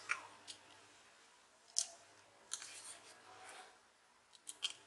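Faint, scattered clicks and light scrapes of a small screwdriver and metal drive bracket as the screws holding a replacement SSD in the laptop's drive caddy are fastened.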